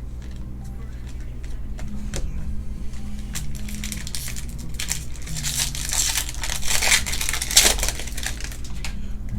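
Plastic wrapper of a trading-card pack crinkling as it is handled, loudest and busiest in the second half, with a few light clicks earlier. Quiet background music plays underneath.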